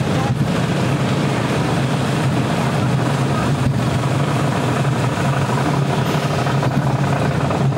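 Steady rushing noise of a roller coaster ride in motion: wind buffeting the microphone and the train running along its track on the Technic Coaster.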